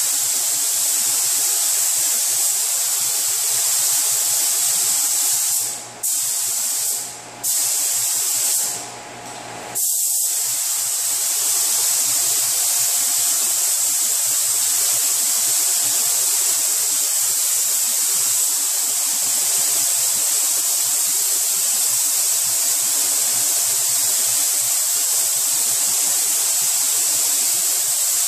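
Compressed-air paint spray gun hissing steadily as it lays a coat of white sealer on a car hood. The trigger is let off briefly three times, about six, seven and nine seconds in.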